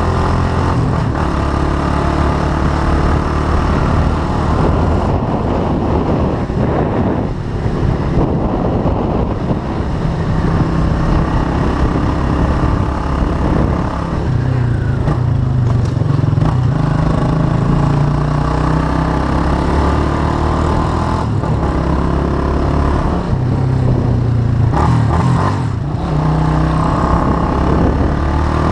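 Custom cruiser motorcycle engine running while riding, its pitch rising and falling several times with short dips as the rider speeds up and changes gear.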